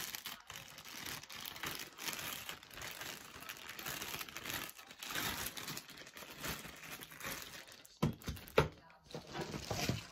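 Plastic packaging crinkling and rustling as it is handled, with two sharp knocks about eight seconds in.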